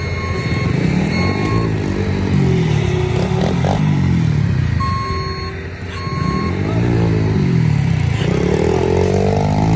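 Small dirt bike engine revving up and down again and again as the rider pulls wheelies, with a long rising rev near the end. A backup alarm beeps in short pairs in the background.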